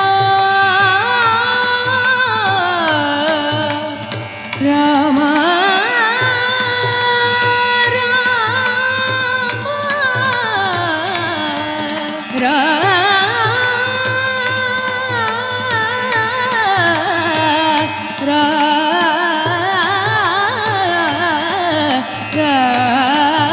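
A woman's voice singing a wordless, heavily ornamented Carnatic-style melodic passage in a Kannada devotional song (devaranama), in phrases of several seconds with short breaks between them, over a steady drone.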